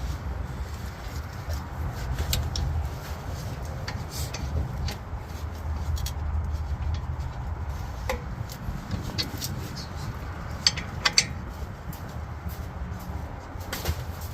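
Scattered sharp metallic clicks and knocks of hand tools on the car's underside, a close pair of louder ones a little after the middle, over a steady low rumble.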